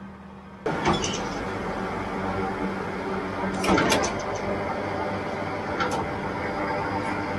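Claas Variant 480 RC round baler running behind its tractor, a dense steady mechanical clatter with several sharp knocks. It starts abruptly about half a second in, after a short quieter steady engine hum.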